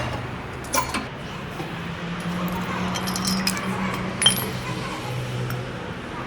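Metal tools and brake parts clinking and knocking as they are handled: a few sharp clinks, about a second in and again near the four-second mark, over a steady low hum.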